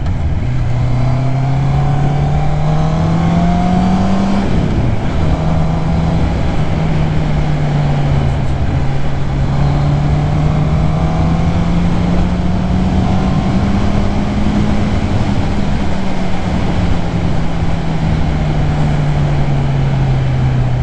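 Motorcycle engine under way: it pulls up through the revs, drops at a gear change about four and a half seconds in, climbs slowly again and eases off over the last few seconds. Steady wind and road noise run underneath.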